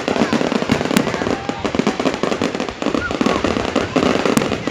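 Fireworks display going off: a rapid, continuous run of crackling bangs, with people's voices underneath.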